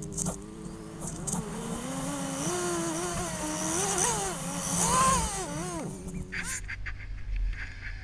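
Snowmobile engine accelerating along a trail, its pitch climbing and wavering with the throttle for several seconds. About six seconds in the engine note falls away, leaving a low steady hum.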